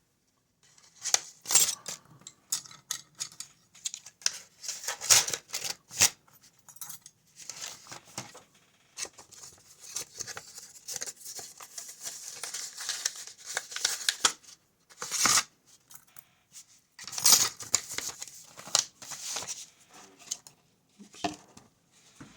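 Packaging being handled: irregular bursts of crinkling, rustling and tearing-like crackle, with short pauses between them.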